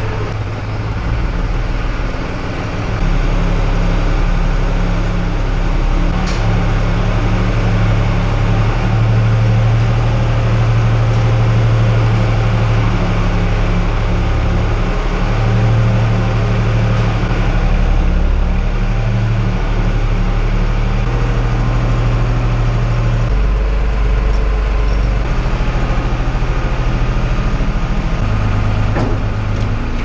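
Tractor engine running steadily under load, driving a Trioliet Gigant 700 feed mixer through the PTO as it unloads mixed feed, heard from inside the tractor cab. It gets louder about three seconds in, then holds steady.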